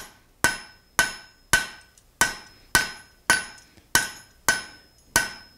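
Hand hammer striking a red-hot half-inch square mild steel bar on an anvil, about ten blows at a steady two a second, each with a short metallic ring: drawing out a short taper on the point of a forged tent stake.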